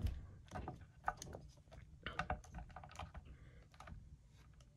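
Plastic dinosaur action figure being handled and posed: a run of light, irregular plastic clicks and taps from its joints and the hands moving it.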